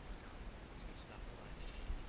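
Fishing reel being cranked to reel in a hooked fish: faint small mechanical clicks about a second in and a short light whir near the end, over a low rumble of wind on the microphone.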